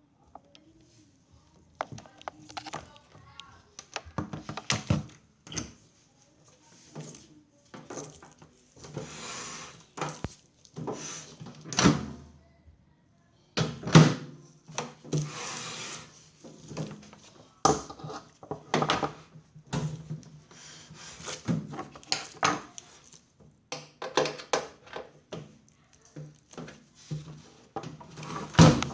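Irregular knocks, clicks and scrapes of hard parts being handled, with a couple of longer sliding scrapes, as a microwave oven is taken apart to reach its turntable motor.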